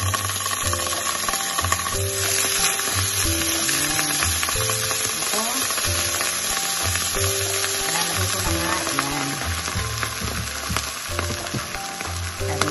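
Butter melting and sizzling in a hot nonstick frying pan, moved about with a spatula; by the end, beaten egg and milk is frying in the butter.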